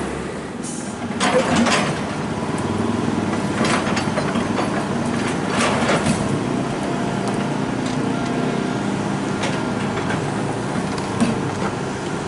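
Heavy diesel engine running steadily, with a few short, sharp noises over it.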